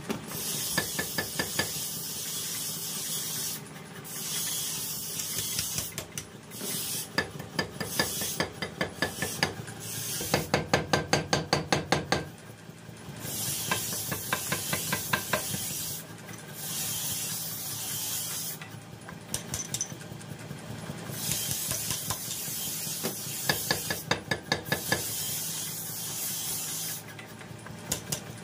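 Mechanical power hammer forging a red-hot steel sickle blank, its ram striking in bursts of fast, even blows, about five a second, with the heaviest run about ten seconds in. Between bursts the running machine gives a steady hiss.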